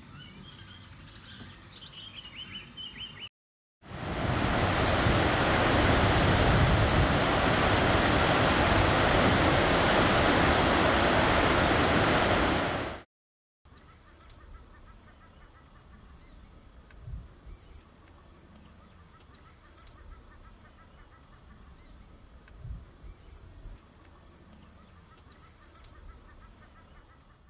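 A few short bird chirps over outdoor ambience. Then a loud, steady rush of noise for about nine seconds that cuts off abruptly, followed by a quieter, steady high-pitched hiss with two faint thumps.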